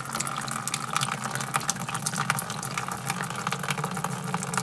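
Water poured in a steady stream from a can into a plastic bucket with dirt in the bottom, splashing to make muddy water.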